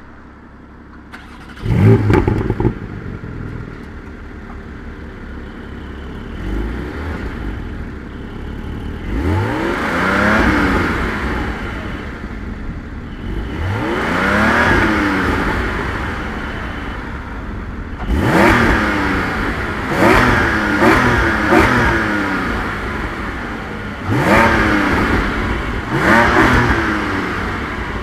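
Porsche 718 Cayman GT4's 4.0-litre flat-six starting up about two seconds in, then idling. It is revved twice in long rising pulls, then blipped in a run of short, sharp revs in the second half. Its sport exhaust button is off, so the exhaust valves stay closed.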